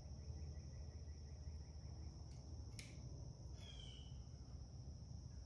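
Faint background with a steady high-pitched insect drone. A single sharp click comes about halfway through, and a short bird-like chirp follows it.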